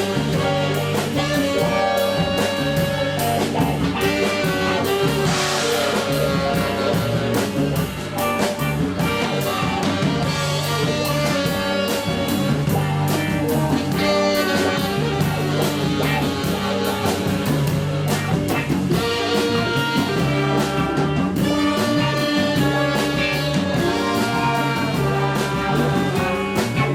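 Live band playing Ethiopian jazz: horns carry a sustained melody over a bass line and a steady drum beat.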